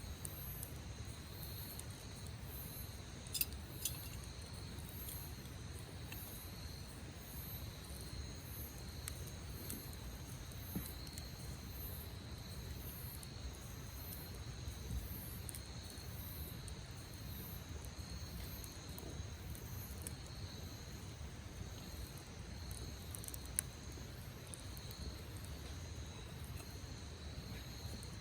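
Crickets chirping in a steady, pulsing high trill, with a few sharp pops from a wood campfire.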